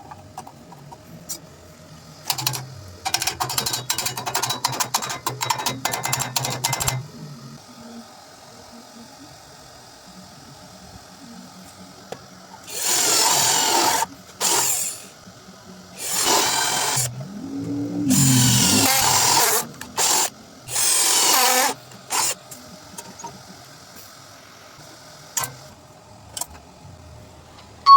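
Power-tool metalwork. A small motor runs with a rapid clatter of clicks for about four seconds, then a tool sounds in five or six separate hissing bursts of a second or two each, with a few single clicks near the end.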